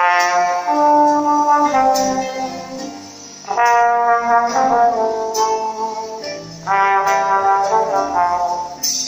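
Trombonito, a small trombone, playing a slow melody in three phrases of held notes. Each phrase starts loud and fades over about three seconds.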